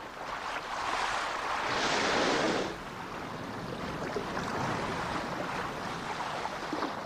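Ocean water noise: a rushing wash that swells up over the first couple of seconds, then settles into a steady lower hiss.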